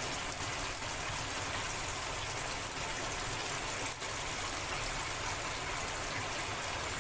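Tomato-onion masala frying in oil in a wok, a steady sizzle.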